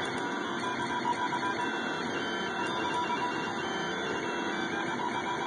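SeeMeCNC Orion delta 3D printer running a print: its stepper motors give a steady whine with a few held tones over a constant mechanical hiss.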